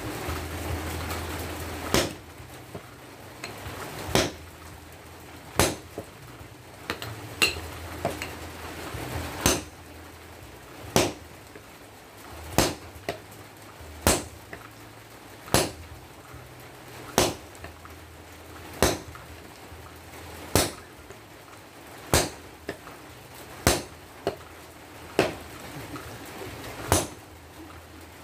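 Sledgehammer blows on hot steel at a blacksmith's anvil, a sharp clang about every one and a half seconds, with lighter taps between some blows: hand-forging a machete blade from excavator breaker-chisel steel. A steady rushing noise stops about two seconds in, just as the blows begin.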